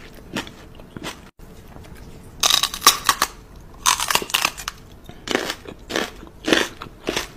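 Close, irregular crunching and crackling noises. A few faint clicks are followed, from about two seconds in, by louder bursts coming roughly once a second.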